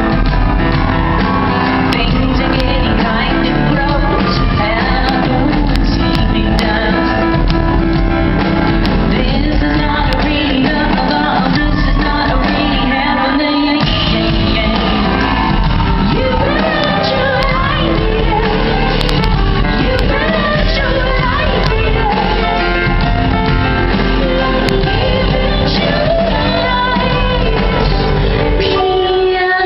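Live rock band playing with a female lead singer, loud and continuous, in a low-quality audience recording made in a large hall.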